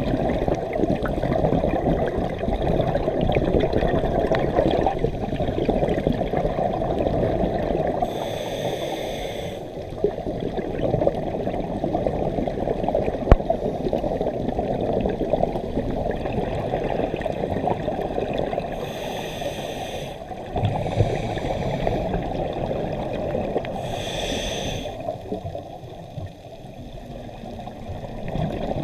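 Muffled underwater rumble and gurgle picked up through a dive camera's housing, with three brief bursts of scuba regulator exhaust bubbles.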